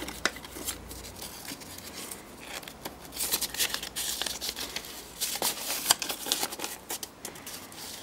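Plastic parts bags and paper crinkling and rustling as a hand digs through a case of small typewriter parts and unfolds a folded paper note, with quick sharp clicks among them. Busiest from about three seconds in until near the end.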